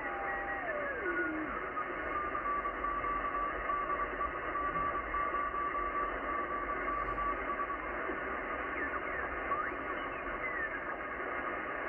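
Yaesu FTdx10 shortwave transceiver in upper sideband being tuned through the Morse code segment of the 10-metre band: steady band hiss with signal tones sliding in pitch as the dial turns. One tone drops steeply in pitch in the first second and a half, another holds steady for several seconds midway, and a few more slide past near the end.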